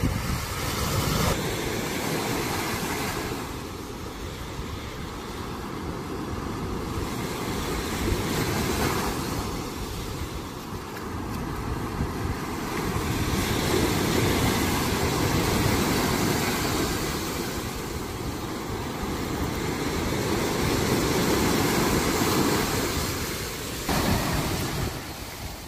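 Small surf breaking and washing up on a sandy beach, swelling and ebbing every few seconds, with wind buffeting the microphone.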